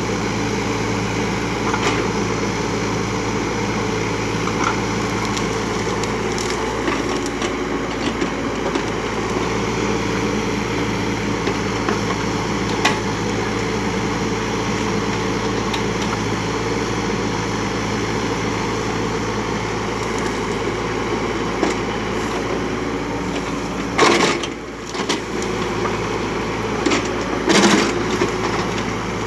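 Kubota U35 mini excavator's diesel engine running steadily under work, with wood cracking and splintering as brush is torn out. A few sharp cracks, the loudest two near the end.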